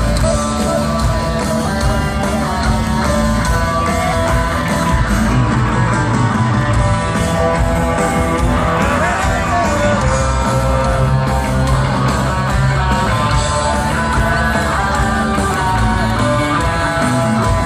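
Live rock band playing loud, distorted electric guitars, bass and drums with a male lead singer, heard through a concert crowd's recording.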